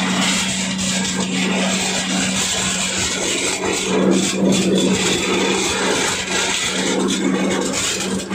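Areca nut husking machine driven by an 8 hp diesel engine, running steadily under load: a constant hum with a continuous dense scraping noise of dried areca nuts being husked inside the drum.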